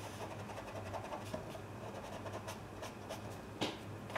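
Stiff flat paintbrush rubbing on damp watercolour paper: faint, soft scratchy strokes, a few a little sharper, as paint is re-wetted and lifted out to make a highlight.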